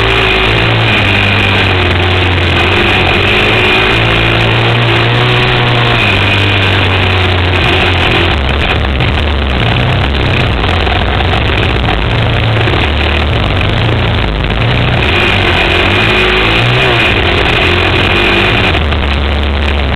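Suzuki LT-Z400 quad's single-cylinder four-stroke engine, loud and close to the camera, ridden hard with the revs rising and falling again and again.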